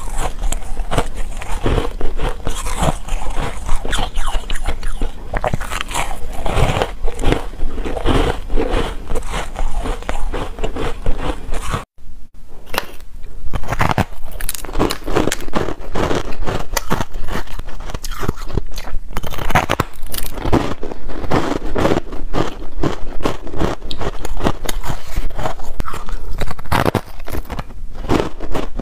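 Close-miked biting and crunching of hard, granular layered frozen ice: dense crackling crunches, bite after bite. The sound drops out briefly about twelve seconds in, then the crunching resumes.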